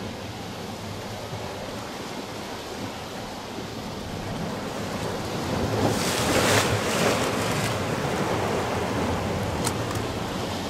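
Sea waves washing against a rocky shore, with one wave breaking and splashing on the rocks about six seconds in, the loudest moment, before the wash eases again.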